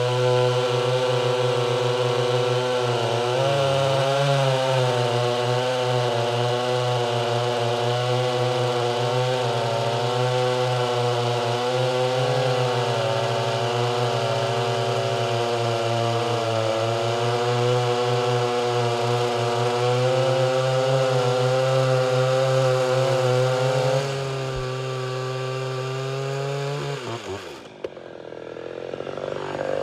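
Ported Homelite Super XL two-stroke chainsaw running at full throttle through a large log, held at a steady high pitch. The pitch sags briefly about four seconds in. Near the end it drops away as the throttle is let off and the cut finishes.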